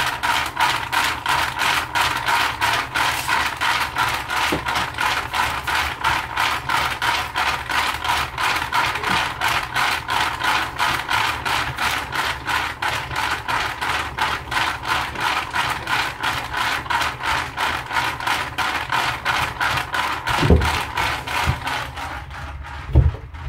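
Ball mill running, its grinding balls tumbling in the drum in a loud, regular clatter of about three or four beats a second. Near the end the clatter turns duller and quieter as boards and the lid of its soundproof box are set down over it, with two heavy thumps.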